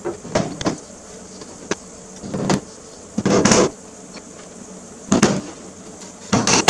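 Metal license plates being put up on a wall: a run of about six short, irregular bursts of knocking and scraping.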